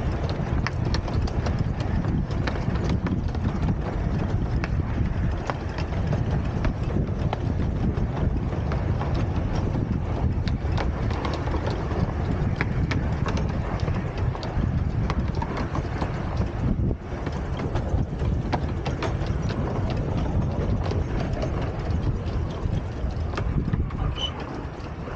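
12¼-inch gauge miniature steam train running along the track: a steady low rumble with rapid clicks and rattles from the wheels and couplings.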